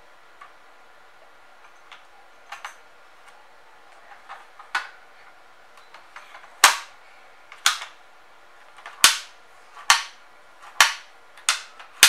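Sharp plastic clacks and knocks from a toy activity cube being handled: a few faint clicks at first, then louder clacks about once a second from about halfway through. No music plays from the toy.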